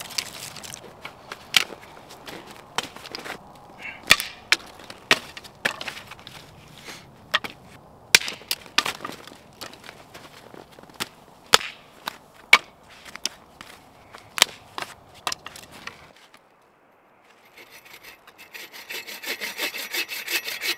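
Dead, dry branches snapping with sharp, irregular cracks as they are broken off a fallen dead tree by hand. After a short pause, a hand saw starts rasping back and forth through the wood in steady strokes near the end.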